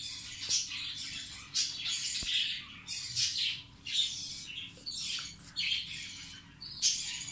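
Pet parrots squawking and chirping in short, harsh, high calls, one or two a second.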